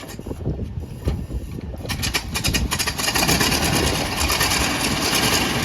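1926 Ford Model T's 20-horsepower four-cylinder engine starting: quick even pulses about two seconds in, then it catches and runs louder and steady.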